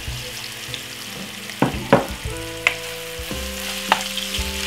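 Diced raw chicken breast sizzling as it goes into hot oil in a frying pan, with a wooden spoon stirring it and knocking sharply against the pan about four times.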